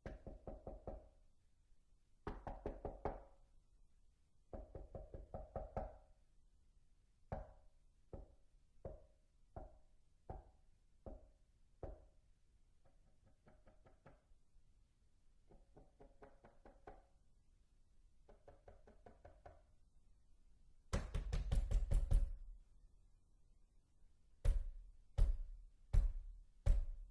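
Knocking on a door in changing patterns: quick bursts of knuckle raps, then a run of single knocks a little over half a second apart, then softer quick bursts. About three-quarters of the way through comes a loud, rapid pounding, followed by heavy single bangs about half a second apart.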